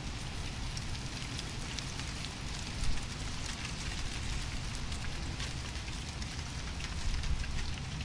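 Leaves rustling in wind: a steady dense crackle of many small ticks over a low wind rumble, with one short louder swell about three seconds in.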